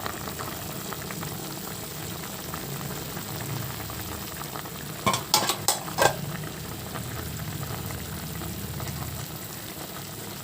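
Pot of chicken pieces boiling in water on the stove, bubbling steadily after about 15 minutes of cooking. About five seconds in, a quick run of four or five sharp knocks, the loudest sounds here.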